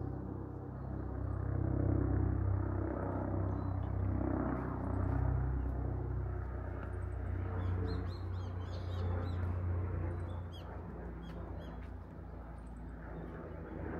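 A vehicle engine running at a low, steady hum that swells a couple of seconds in and eases off after about ten seconds, while small birds chirp in short bursts, most of them in the middle.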